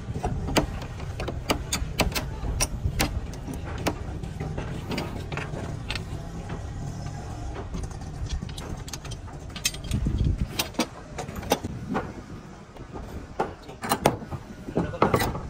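Irregular sharp knocks and taps, the kind made by hand work with tools, over a steady low rumble that swells briefly about ten seconds in.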